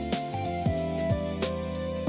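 Background music: a held melody over deep bass hits that drop in pitch.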